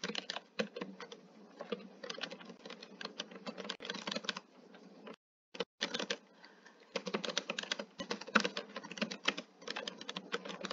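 Typing on a computer keyboard: a fast, irregular run of keystrokes, broken by a short gap a little past halfway.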